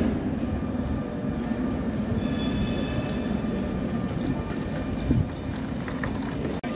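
Tatra KT8 articulated tram running away along wet street rails, a steady low rumble. About two seconds in, a high whine of several tones sounds for about a second.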